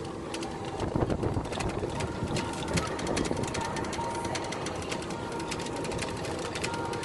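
A small vehicle running and rattling steadily as it drives along a paved path, with fast, dense clicking.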